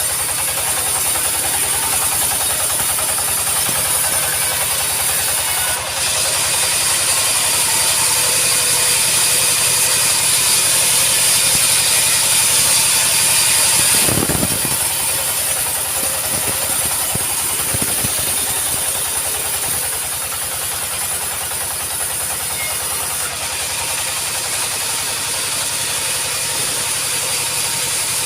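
Sawmill machinery running steadily, with an engine pulse under a loud high hiss, while acacia logs are sawn. A brief knock about halfway through, followed by a few lighter knocks.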